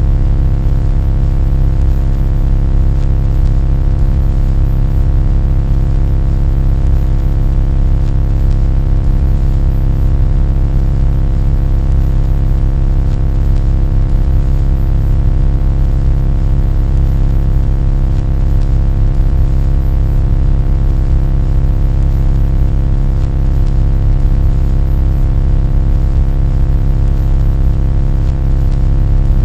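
Loud, unchanging low drone with a stack of steady tones above it.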